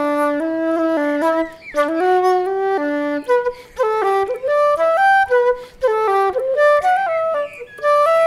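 Background music: a solo woodwind melody, flute-like, of short stepping notes with brief pauses between phrases.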